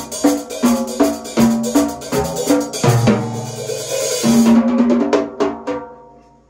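Large acoustic drum kit being played: a steady pattern of pitched tom and bass-drum hits, about two to three a second, with a cymbal crash about three seconds in. Near the end the strikes grow softer and die away.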